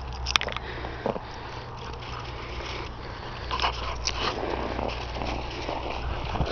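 A Siberian husky tugging and biting at its leash, making sharp clicks and scuffles over a low rumble. The clearest clicks come near the start and again at about three and a half to four seconds, with a denser rustle after that.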